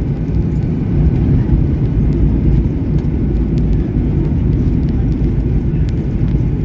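Steady low roar inside a jet airliner's cabin as it rolls along the runway just after touchdown: engine and runway rumble, with a few faint cabin rattles.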